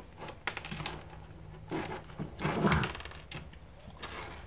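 Wires with spade connectors and hand tools being handled on a wooden workbench: scattered light clicks, taps and rustles, busiest around the middle.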